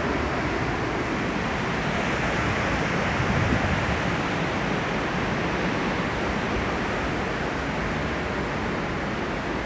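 Steady rushing noise of a large waterfall in heavy flow, heard from a nearby viewing platform.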